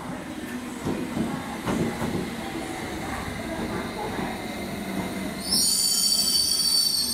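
London Underground S7 Stock train running into the platform, its wheels rumbling with a few clatters. About five and a half seconds in, a loud high-pitched squeal of several tones at once sets in as the train brakes to a stop.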